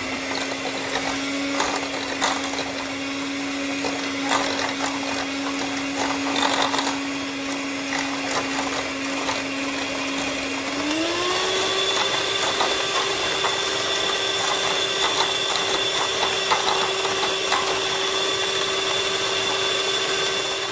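Electric hand mixer running steadily, whisking a sugary drink-powder mixture into foam. Its motor note steps up to a higher steady pitch about halfway through, and light clicks come from the beaters against the bowl.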